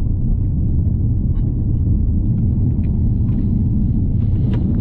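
Steady low rumble of a distant SpaceX test explosion.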